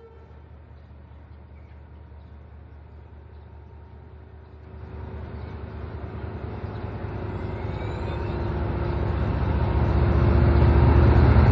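A D19E diesel-electric locomotive's engine running as it moves along the platform. Its low hum grows steadily louder from about halfway through as the locomotive draws alongside and passes.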